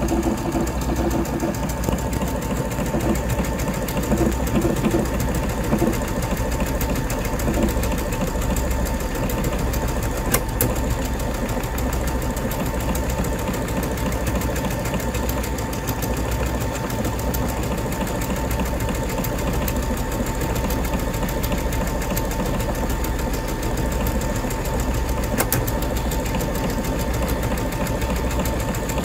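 Brother Innov-is VQ2 computerised sewing machine running steadily, sewing a decorative stitch and lettering pattern into denim with its sideways feed.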